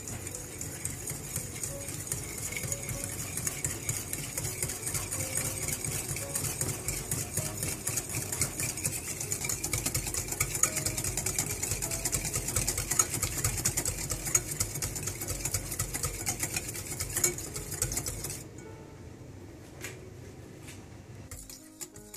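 Metal whisk beating a mayonnaise and cream dressing in a white ceramic bowl: rapid, steady clattering of the whisk against the bowl. About eighteen seconds in it drops to a softer stirring.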